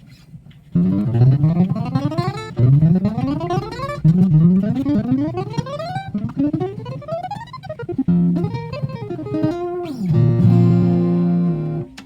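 Acoustic guitar strings ringing as they are tightened up to pitch, the note sliding steeply upward again and again, about six times. From about two-thirds of the way in, steady notes ring out until the sound stops shortly before the end.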